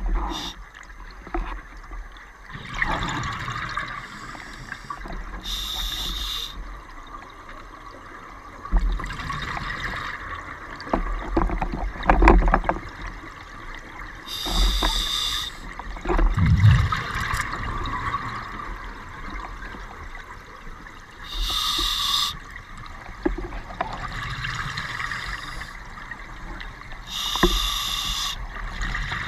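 A scuba diver breathing through a regulator underwater: four short hissing inhales, about six to seven seconds apart, alternate with longer rushes and gurgles of exhaled bubbles.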